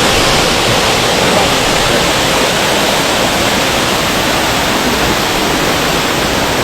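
Waterfall with a loud, steady rush of falling water.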